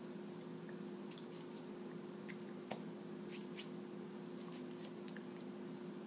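Steady low electrical hum with a scatter of faint, short clicks and ticks, the small hand and mouth noises of a person signing silently.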